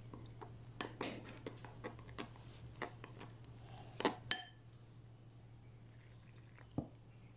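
Metal spoon stirring flour and water into a dough in a glass mixing bowl: soft squishing scrapes with small irregular clicks, then two sharper clinks of the spoon on the glass about four seconds in.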